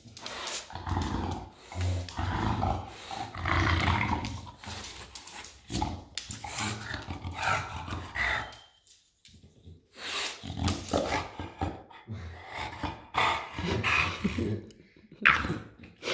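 English bulldog grunting and snuffling in irregular bursts while working at a net bag of mandarins on a tile floor. There is a short quiet pause about nine seconds in.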